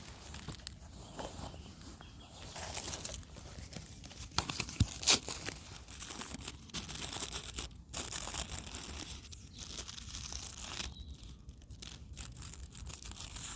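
Close-up rustling, crinkling and tearing of paper and packaging in irregular bursts, with small handling clicks and one sharp click about five seconds in, from rolling a joint by hand.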